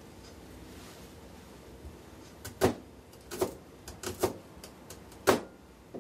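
Five sharp knocks and clacks of things being handled at a kitchen counter, irregularly spaced, starting about two and a half seconds in; the loudest are the first and the one about five seconds in.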